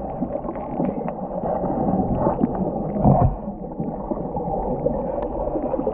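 Muffled underwater rushing and bubbling of water churned by a swimming elephant, with a louder gurgling surge about three seconds in.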